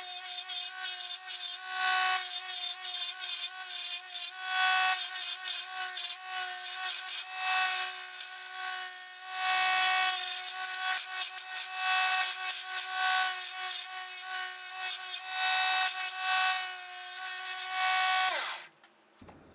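DC 24V mini lathe's motor running with a steady whine while a small hand chisel cuts grooves into a spinning wooden dowel, in repeated scraping bursts. Near the end the whine drops in pitch and stops as the lathe spins down.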